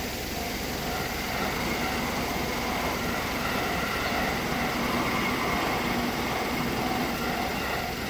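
Japanese level-crossing warning bell ringing in a fast, even ding-ding-ding while a train passes, the train noise growing through the middle and easing toward the end.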